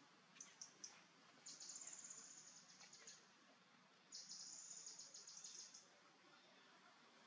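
Faint high-pitched trilling from wildlife in the forest: two rapid, steady-pitched trills, each about a second and a half long, after a few short chirps about half a second in.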